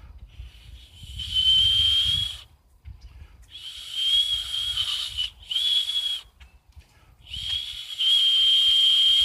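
A small hand-held whistle blown by mouth in a series of about five breathy blasts, each a steady, high, piercing tone. The longest blast comes near the end. Quite loud.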